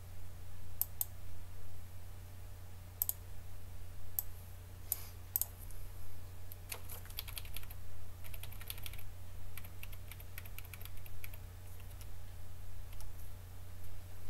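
Typing on a computer keyboard: irregular key clicks, a few single ones at first, then a busy run of typing through the middle and a short burst near the end, over a steady low hum.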